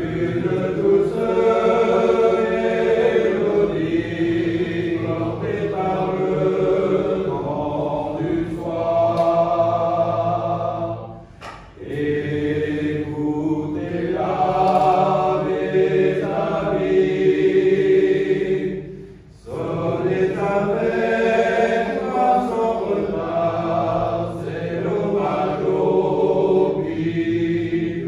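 Men's choir singing a cappella, in three phrases with short breaks about 11 and 19 seconds in.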